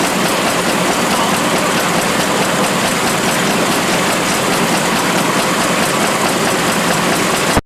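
A mineral shaking table running: a steady rush of wash water flowing over the deck, mixed with the machine's mechanical running noise. It cuts off abruptly at the very end.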